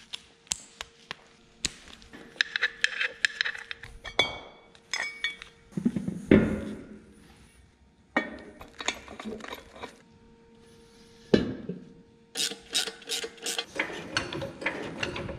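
Metal clinks, taps and knocks of hand tools and parts as an aluminium bell-housing adapter is unbolted and handled, with two heavier thumps partway through and a fast run of clinks near the end.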